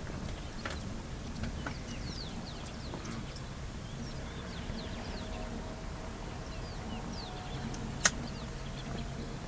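Many short, high, falling bird chirps over a steady low rumble, with one sharp click about eight seconds in.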